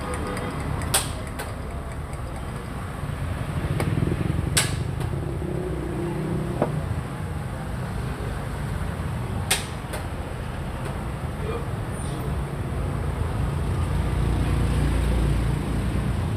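A few sharp, isolated clacks of a Xiangqi piece set down on a wooden board and a chess clock button being pressed, the loudest about four and a half seconds in, over a steady low background rumble.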